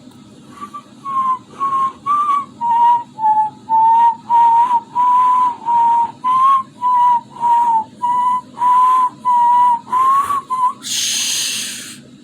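A whistling snore: a high whistle on each breath, about two a second, then one longer hissing breath near the end.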